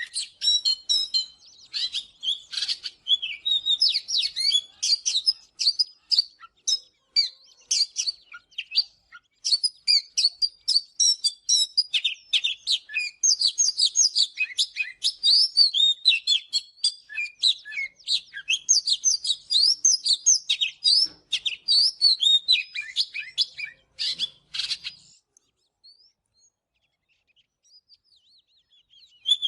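Oriental magpie-robin singing a fast, varied stream of high whistles and chirps, falling quiet about four seconds before the end.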